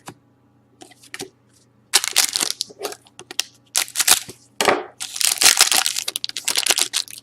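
Foil wrapper of a hockey card pack crinkling and tearing as the pack is opened, in irregular bursts from about two seconds in.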